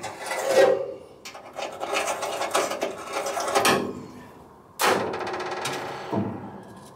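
Silverline hand deburring tool scraping around the edges of freshly drilled rivet holes in sheet-steel car floor panel, in short uneven rasping strokes, so the rivets will sit flat. About five seconds in the tool clatters down onto the steel floor, followed by a smaller knock.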